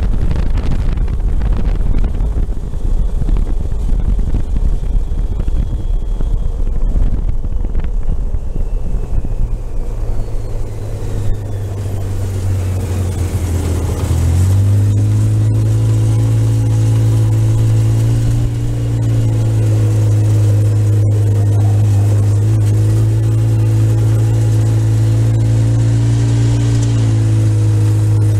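ATV engine and wind buffeting while riding along a road. About halfway through it slows and settles into a steady, low engine hum.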